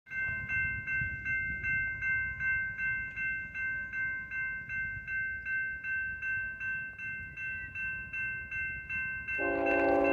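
Railroad grade-crossing warning bell dinging steadily, nearly three strokes a second. Near the end the lead locomotive's multi-chime air horn, on a BNSF ET44C4, starts a long blast and drowns out the bell as the eastbound freight approaches.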